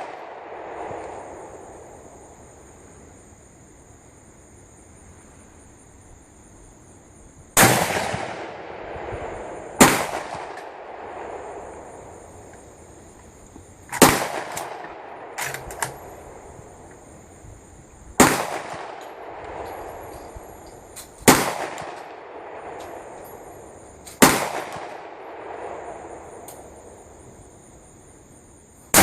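Rifle shots from a Mossberg MVP Varmint bolt-action rifle in 7.62×51mm NATO, being test-fired with its replacement barrel: after about seven quiet seconds, a string of loud single shots two to four seconds apart, each with a trailing echo, plus a few fainter sharp cracks in between.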